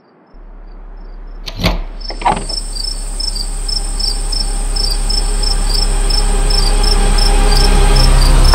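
Crickets chirping in an even rhythm over a low drone that comes in near the start and keeps growing louder. Two sharp hits land about a second and a half and two seconds in, and a thin high whine joins from the first hit on, building tension.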